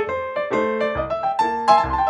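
Background piano music: a quick run of struck piano notes, several a second, with deep bass notes underneath.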